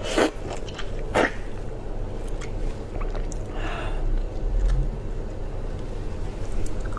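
Close-miked eating of a soy-marinated shrimp: two sharp slurps as the shrimp's head is sucked in the first second or so, then small crackles and clicks as the shell is pulled apart by hand.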